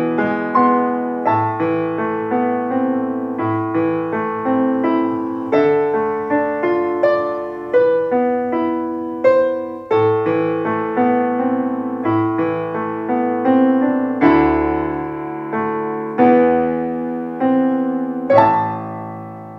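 Spyker HD-W152 white grand piano being played: a flowing classical-style piece of single notes and chords over lower repeating notes. About 18 seconds in, a final chord is struck and left to ring out and fade.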